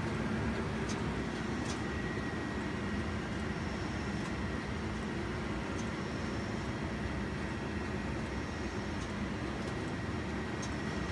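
Jung JF520 surface grinder powered up and running, giving a steady mechanical hum with a low tone and a few faint ticks.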